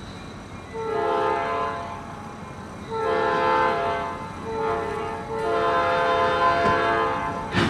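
Diesel locomotive's air horn sounding the grade-crossing signal: two long blasts, a shorter one and a final long one, warning of the train at the road crossing.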